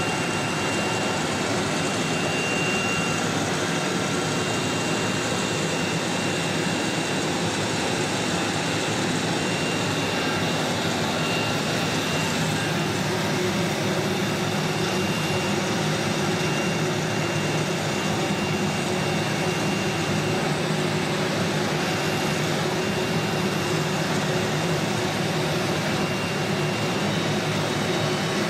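CNC router machinery running steadily: a continuous whirring hum with a faint high whine that comes and goes.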